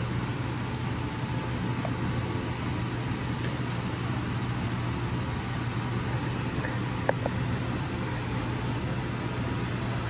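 Steady low mechanical hum of shop equipment running, with a few light metallic clicks as small parts are handled and picked at on a high-pressure oil rail. The clearest click comes about seven seconds in.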